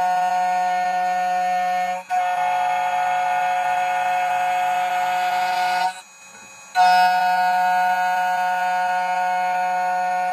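CNC key cutting machine's cutter motor running with a steady whine while it mills a key blank down to width. It dips briefly about two seconds in, stops for under a second around six seconds, then runs again until just before the end.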